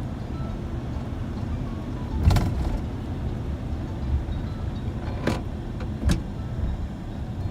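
Road vehicle driving: a steady low rumble of engine and road noise, with three short knocks or rattles about two, five and six seconds in, the first the loudest.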